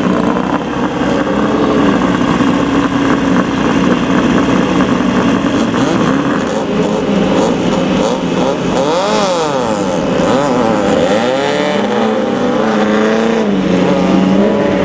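Off-road race vehicle engine running hard, its pitch climbing and falling a couple of times past the middle as it revs up and back down.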